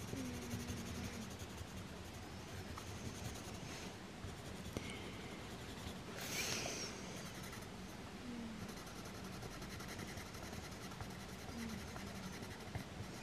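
Coloured pencil scratching softly across paper in steady colouring strokes.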